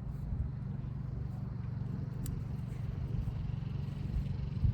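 Steady low engine drone, like road traffic or a running motor, with one sharp click about two seconds in.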